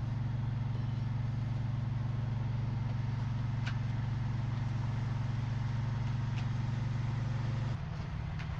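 A motor vehicle's engine running at a steady speed, a constant low drone; its note shifts abruptly near the end.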